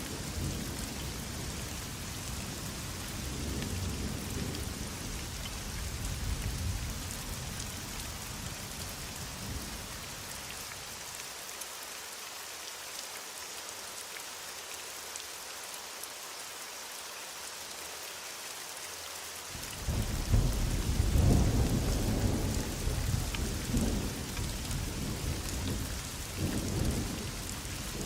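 Heavy rain falling steadily, with rolling thunder. The thunder rumbles for the first ten seconds or so, dies away for several seconds, then returns loudly about twenty seconds in and keeps rolling to the end.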